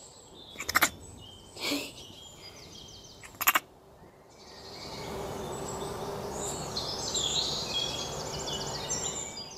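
Outdoor ambience: a few short sharp calls in the first few seconds, then a steady rushing background with birds chirping in repeated high notes.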